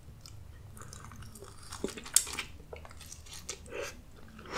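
Close-miked mouth sounds of a person biting into and chewing a hand-held chile relleno, with a series of small irregular clicks and smacks, loudest about two seconds in.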